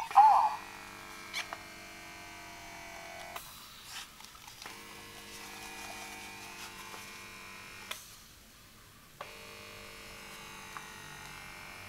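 RENPHO eye massager's small built-in motor running with a steady electric hum. It stops and restarts a few times, with a small click at each switch, as it works through its air-pressure massage cycle. A short louder sound comes right at the start.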